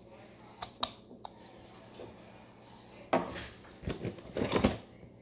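3D-printed plastic spool adapter parts being handled and fitted together. Two light clicks come just under a second in, then scraping and rubbing of plastic from about three seconds in to near the end.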